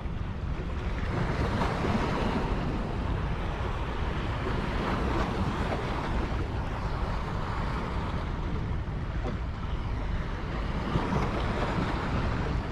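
Steady rushing of water with wind buffeting the microphone, swelling and easing every few seconds.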